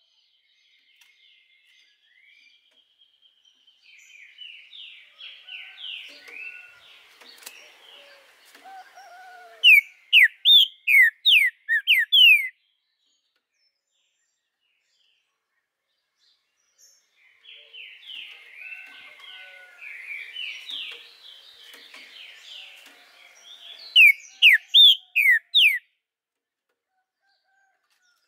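Green-winged saltator (trinca-ferro) singing two song phrases. Each is a soft twittering run that ends in five or six loud, clear downward-slurred whistles, the first starting about four seconds in and the second about seventeen seconds in.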